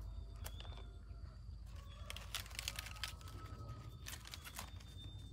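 Faint crinkling and crackling of a dry rice paper sheet and crisp lettuce leaves being handled and picked apart, in short clusters about two seconds in and again about four seconds in.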